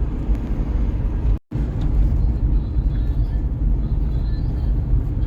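Steady low rumble of a road vehicle, broken by a brief dropout to silence about a second and a half in.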